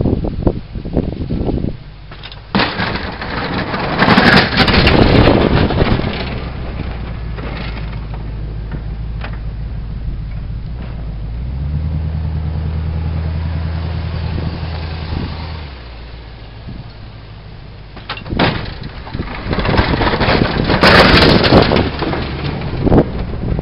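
1983 GMC Jimmy's 400 V8 engine running as the truck plows snow and backs up, its pitch rising and easing off, holding steady for a few seconds past the middle. Two loud bursts of rushing noise, about four seconds in and near the end.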